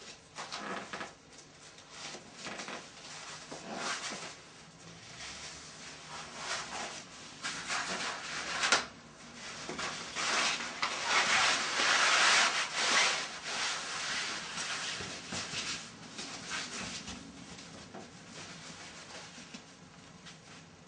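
Stretchy swimsuit fabric and its foam float panels rubbing and rustling against skin as the flotation suit is peeled off, in uneven strokes that are loudest a little past the middle.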